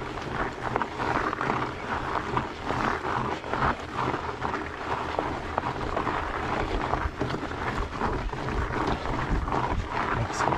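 Fat bike's 4.8-inch tires rolling slowly up a steep dirt trail, with irregular crunching over grit and small stones, over a low rumble of wind on the microphone.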